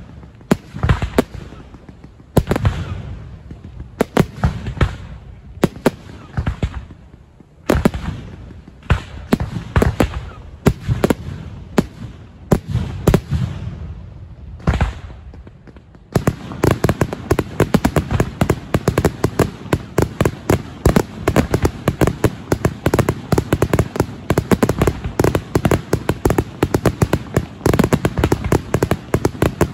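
Fireworks going off: separate loud bangs at irregular intervals, each trailing off in a rumble. About sixteen seconds in they give way to a dense, continuous barrage of rapid reports.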